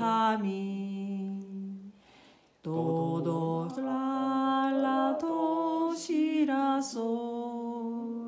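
A voice slowly singing solfège note names, holding each pitch steadily, with a short break about two seconds in: note-name sight-singing practice of a song's melody.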